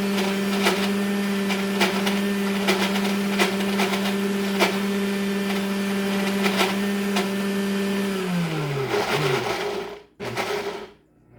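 Breville Bluicer blender motor running steadily on its smoothie setting through a thick, not-liquid barbecue sauce mixture, with frequent sharp ticks over the hum. After about eight seconds the motor winds down and stops.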